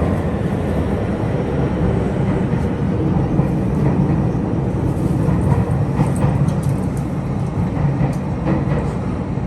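Tokyu 3000 series electric train running, a steady loud rumble of traction motor and gear noise with occasional faint clicks from the wheels and track.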